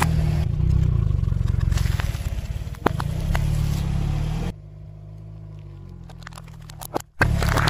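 Low rumble of a car's engine as its tyre rolls slowly over small objects, with scattered sharp cracks and crackling as hollow plastic gives way under it. The loudest crack comes about three seconds in. The sound drops sharply about halfway through and jumps back with another crack near the end.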